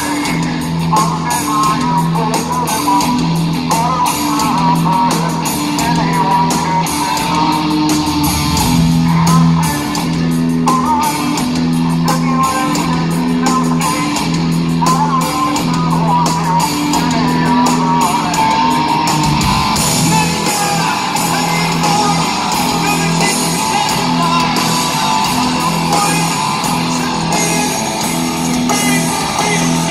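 Rock band playing live, heard from the audience: electric guitar and bass repeat a riff over drums.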